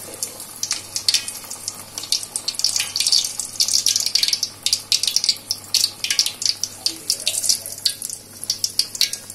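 A paniyaram (moong dal and palm-jaggery batter) deep-frying in hot oil in a kadai: a steady sizzle with dense crackling pops.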